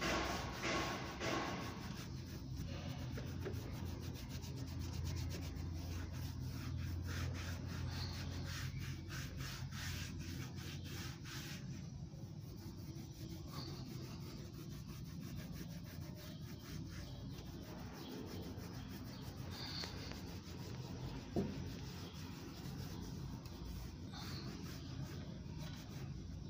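Small applicator pad rubbed back and forth over a car's plastic windshield cowl grille, a continuous scratchy rubbing of many quick short strokes as protectant dressing is worked into faded plastic. One short sharp tick about twenty seconds in.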